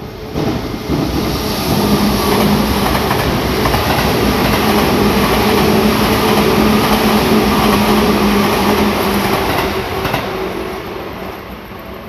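Yellow Seibu 2000-series electric commuter train passing close by at a level crossing: rumbling with wheel clatter on the rails and a steady hum. It swells within the first two seconds, holds for about eight seconds while the cars go by, then fades as the last car clears the crossing.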